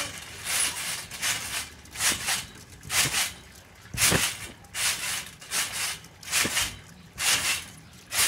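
A person bouncing on a trampoline: the mat gives a short, sharp sound at each landing and push-off, in a steady rhythm of about two a second.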